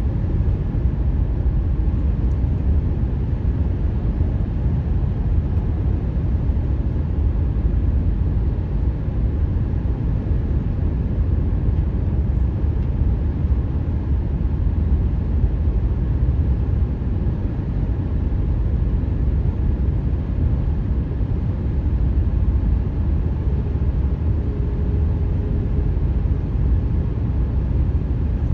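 Steady tyre and road rumble from a car driving at highway speed on newly paved asphalt. The uploader puts the moaning 'ghost noises' down to asphalt laid in cold weather that has not yet settled.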